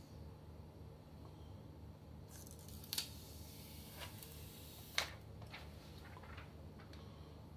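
Handling noise from a smartphone being switched on: faint rustling and a few light clicks and taps, two of them sharper, about three and five seconds in, over a low steady hum.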